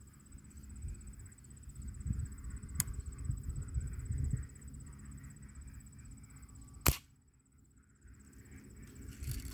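A BB gun firing once with a sharp crack about seven seconds in, with a fainter click a few seconds earlier. Low rumble of handling noise before the shot.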